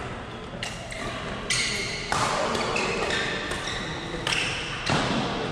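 Badminton players' court shoes squeaking on the hall floor during a rally, a string of short, high squeaks about a second apart, with sharper hits among them; the loudest come just after two seconds and near the end.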